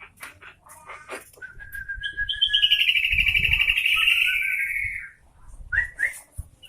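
Sooty-headed bulbul singing: a few short chips, then one long, fast-trilled warbling phrase, the loudest part, followed near the end by two short rising notes.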